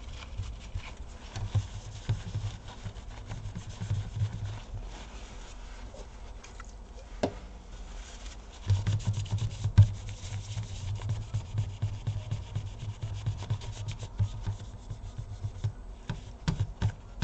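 Paper towel rubbing in quick scrubbing strokes, wiping old thermal paste off a graphics card's GPU chip and cooler. The rubbing comes in spells, louder from about the middle of the stretch.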